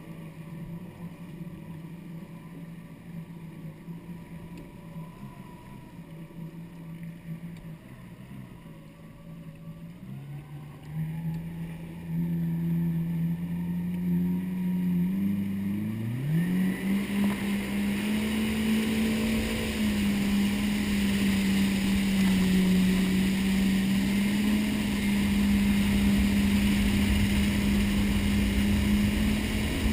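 Yamaha WaveRunner jet ski engine puttering at low revs, then throttled up in steps, its pitch climbing sharply just past halfway. Once it is under way, the rush of water and spray from the jet joins a steady, louder engine note.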